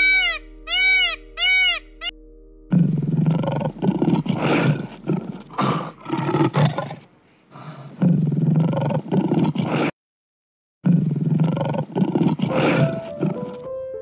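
Big cat roaring and growling in long, harsh bursts, with a brief break near the middle. Just before the roaring starts there are four quick, high chirping calls.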